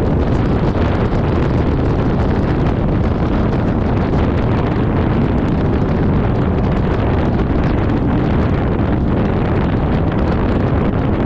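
Loud, steady wind rumble on the microphone, mixed with road noise from travelling along a highway.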